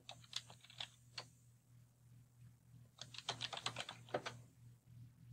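Typing on a computer keyboard: a few separate keystrokes in the first second or so, then a quicker run of keystrokes about three seconds in, faint over a low steady hum.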